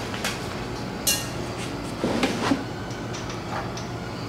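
Steel exhaust header pipes being handled against each other and the engine: a sharp metallic clink with a brief ring about a second in, then a duller knock and clatter about two seconds in, with a few small clicks over a steady low hum.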